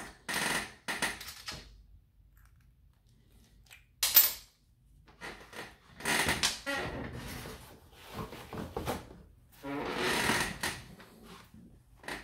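Irregular handling noises: clicks, scrapes and rustles of a bit being fitted into a Dremel rotary tool that is not yet running, with a sharp click about four seconds in.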